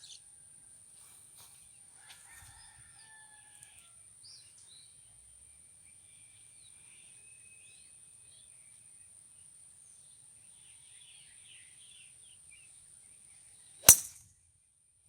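Golf tee shot: a single sharp crack of the club head striking the ball near the end, over faint bird chirps.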